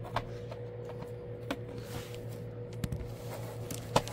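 A few scattered light clicks and taps of hard plastic as a McFarlane Spawn action figure and its stand are handled on a desk, the sharpest near the end, over a steady low hum.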